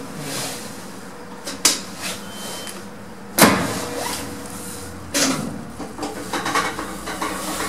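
Lift machinery in the shaft, heard from on top of the car: a steady hum broken by three sharp clunks, the loudest near the middle.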